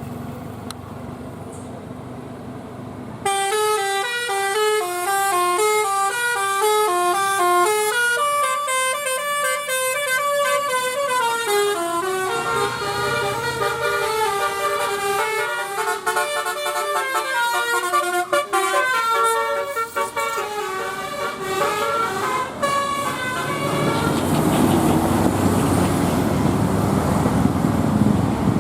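Bus telolet horn playing a fast melody of stepped notes, starting a few seconds in and running for about twenty seconds. After it stops, vehicle noise swells near the end.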